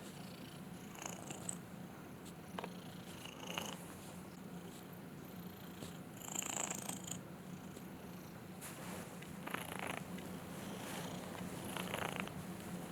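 Cat purring steadily, with a louder breath about every two to three seconds.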